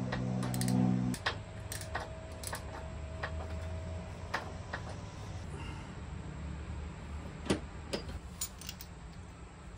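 Ratchet wrench clicking in short, irregular bursts with metal taps as the handlebar riser bolts are worked loose from below. A steady low hum sounds for about the first second, then stops.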